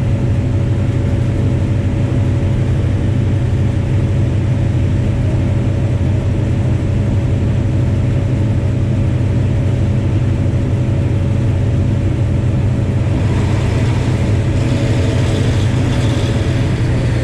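Diesel locomotive engine running steadily under way, a deep, constant hum with a faint steady whine above it. From about thirteen seconds in, a rattling hiss of wheels on track grows over it.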